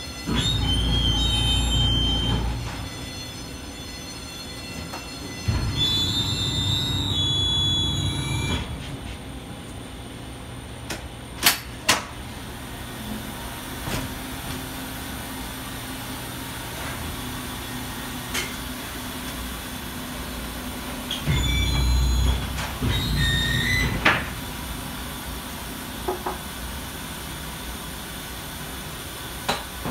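Airport jet bridge's drive machinery running in three bursts of a few seconds each as the bridge is moved up to an aircraft door: a heavy low rumble with a high squealing whine. A couple of sharp knocks fall between the bursts, over a steady hum.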